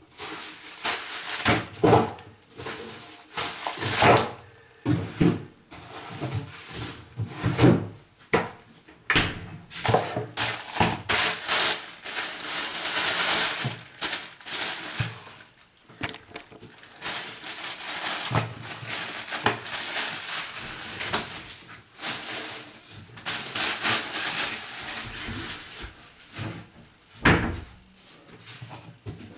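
Irregular knocks, bumps and rustling of household things being handled and moved about.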